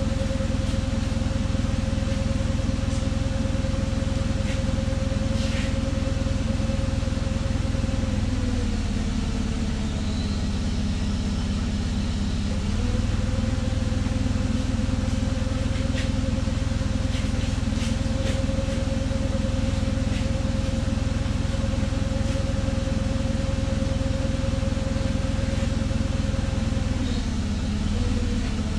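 Forklift engine idling steadily, its pitch sagging and recovering twice: for a few seconds about nine seconds in, and again briefly near the end. A few light metal clinks sound over it.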